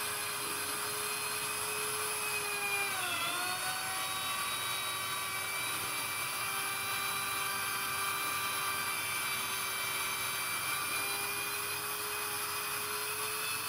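Electric plunge router running at full speed with a steady high whine. Its pitch sags briefly about three seconds in as the motor takes load cutting into the MDF, then recovers.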